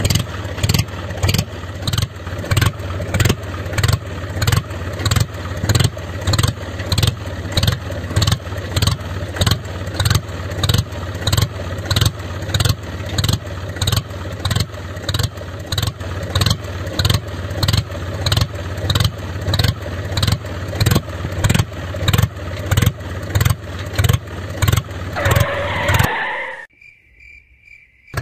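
Mini tractor engine running: a steady low hum with a regular thud about twice a second. It stops abruptly near the end.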